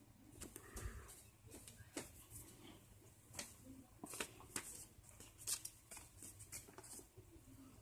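A sheet of paper being handled, giving faint crisp crackles and rustles at irregular intervals.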